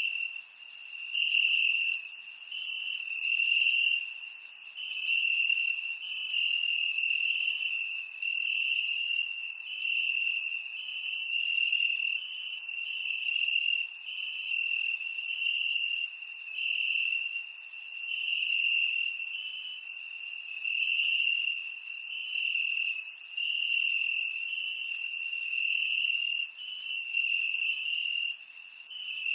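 Crickets chirping: a continuous high-pitched trill that swells and fades in loudness every second or two.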